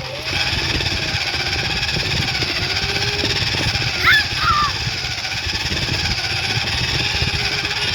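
A toy car's small electric motor running steadily with a whine, over a rough rumble. A short chirping squeak comes about halfway through.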